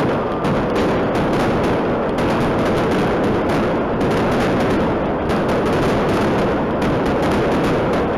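Aerial fireworks bursting directly overhead in a dense, unbroken barrage of rapid bangs and crackle, loud throughout.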